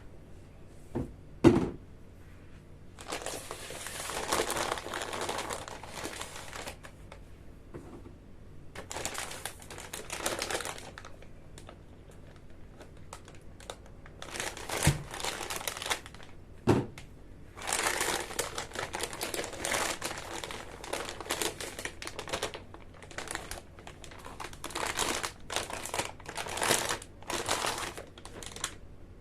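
Packaging crinkling and rustling as it is handled, in stretches of a few seconds, with a few sharp knocks, the loudest about a second and a half in.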